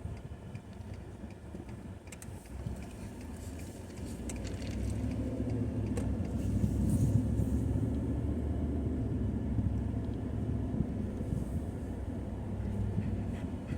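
Car driving, a low road and engine rumble that swells about four seconds in and then holds steady.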